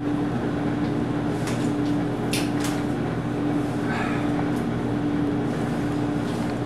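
Steady mechanical hum with one constant low tone under an even background noise, with a few light clicks about two seconds in.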